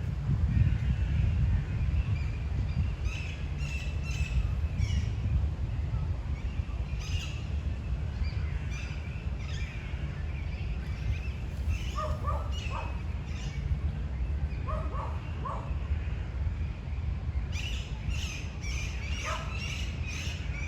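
Wind rumbling on the microphone, with small birds chirping on and off. A lower call comes in short groups of about three, once in the middle, again a few seconds later and near the end.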